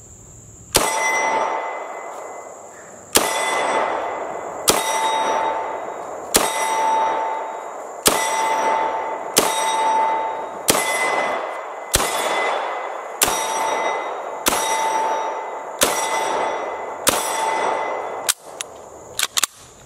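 Uzi Pro pistol fired about thirteen times at a slow, steady pace, each shot followed by the ringing clang of a steel target being hit.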